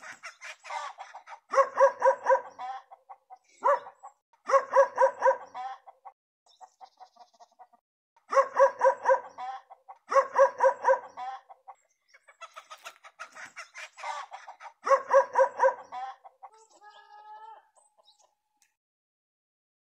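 Domestic chickens clucking in repeated bouts of rapid clucks, each bout about a second long and coming every couple of seconds, with a short wavering call near the end.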